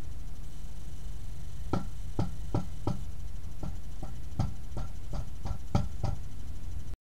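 About a dozen sharp, ringing knocks of someone working by hand inside a wooden shelter, starting about two seconds in and coming in an uneven rhythm of two to three a second, over a steady low hum.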